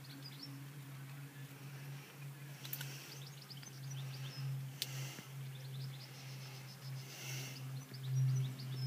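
Small birds chirping and twittering over a steady low hum that swells near the end, with two sharp clicks in between.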